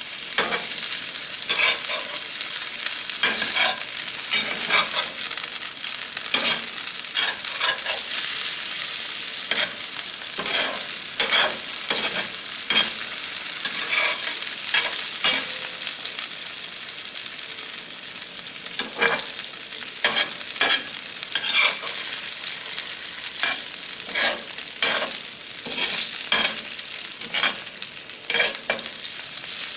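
Diced potatoes sizzling in oil in a skillet, with repeated scrapes and taps of a slotted spatula against the pan as they are turned over.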